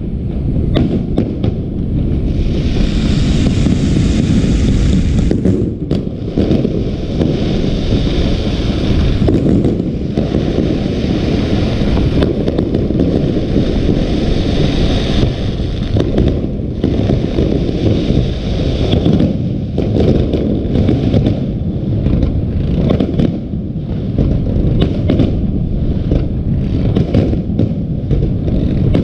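Fireworks display: a rapid, continuous barrage of bangs over a steady rumble, with a layer of hissing crackle through roughly the first half that then fades.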